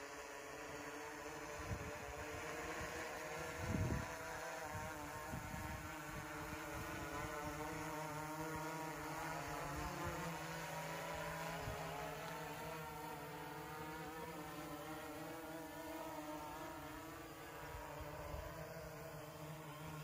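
Quadcopter's electric motors and propellers buzzing in flight, their pitch drifting up and down as the flight controller adjusts motor speed while the drone flies itself back to launch in RTL mode. A brief low thud about four seconds in.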